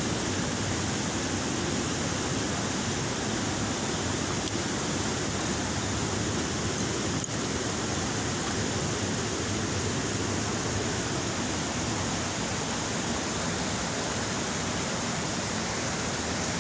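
River rapids rushing over boulders, a steady, unbroken noise of water. A single faint click about seven seconds in.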